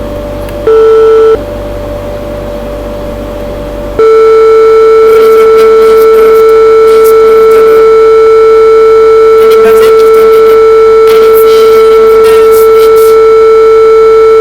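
Simulated buzzer of a PIC16F877A washing-machine program in PICSimLab sounding a steady electronic tone: the door-open alarm. It gives one short beep about a second in, then sounds continuously from about four seconds in.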